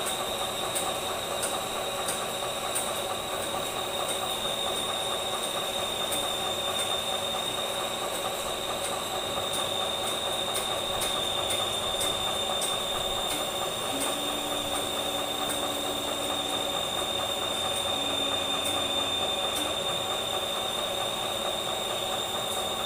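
Small shop hydraulic press running under load, a steady high whine over a lower hum, as it presses the shaft out of a crawler crane's track roller. A low drone joins about fourteen seconds in for a few seconds, and again briefly near eighteen seconds.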